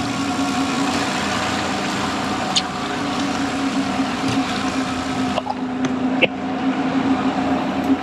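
Sportfishing boat's inboard engine running steadily at slow trolling speed, a low even drone under a hiss of wind and water. The hiss thins out about five and a half seconds in, and there are a couple of light clicks.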